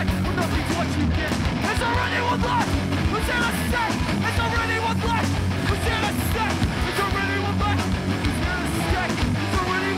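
Hardcore punk band playing live, with distorted electric guitars, bass and drums, and a vocalist yelling into the microphone.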